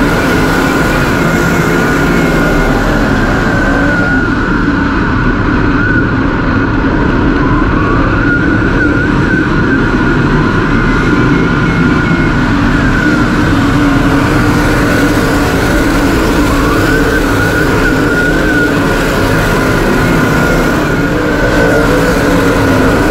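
Engines of a pack of dirt late model race cars (V8s) running at high revs around a dirt oval: a loud, steady drone whose pitch wavers slightly as the cars go through the turns.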